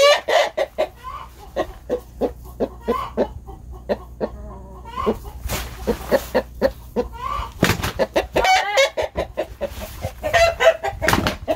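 Rooster clucking in quick, short bursts, with a few longer calls near the end, as it goes at a person's legs.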